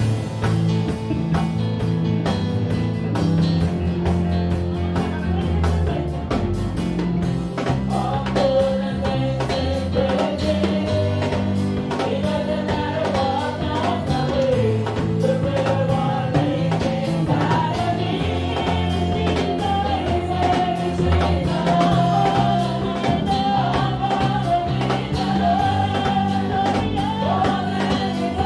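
Live gospel praise-and-worship music: a woman singing lead through a handheld microphone over keyboard and drums, her voice coming to the front about eight seconds in.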